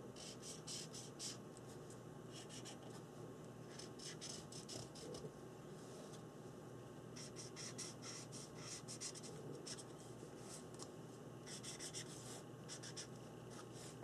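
A Faber-Castell Pitt big brush pen stroking back and forth over collaged paper, making faint, quick strokes that come in irregular runs.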